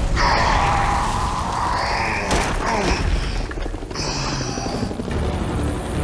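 Cartoon sound effects of a massive energy blast: a loud, continuous rumbling explosion with a sweeping tone in the first second or two and sharp cracks about two and four seconds in.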